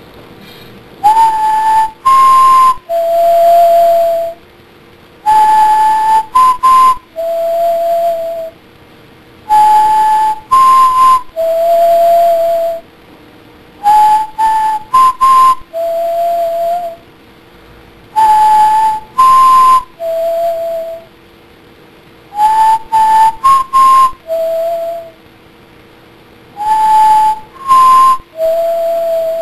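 Soundtrack music: a whistled melody that repeats the same short three-note figure about every four and a half seconds, the second note highest and the third lowest, over a faint steady drone.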